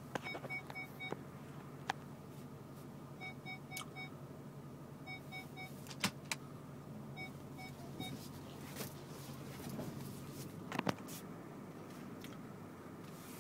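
Inside the cab of a Range Rover Sport with its 3.6-litre TDV8 diesel running steadily at idle. Over this come groups of short electronic beeps, about four at a time, repeated four times in the first eight seconds, and a few sharp clicks later.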